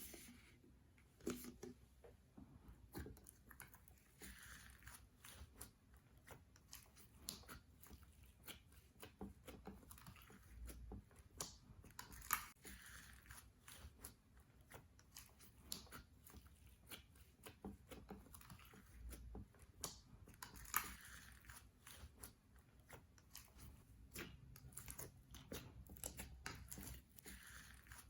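Slime being worked by hand, making a dense run of small sticky clicks and crackles, with a few louder pops now and then.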